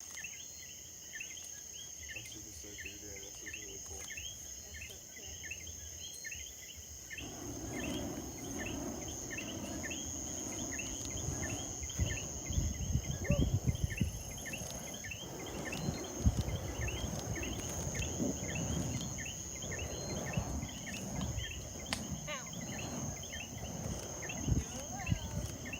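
Night insects: a steady high buzz with crickets chirping in a regular rhythm, about two to three chirps a second. From about seven seconds in, a lower rumbling noise joins, with a few sharper knocks.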